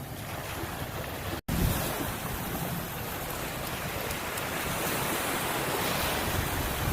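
Ocean surf: waves breaking and washing in as an even rush of noise, with wind buffeting the microphone. The sound cuts out for an instant about a second and a half in, then returns louder and swells toward the end.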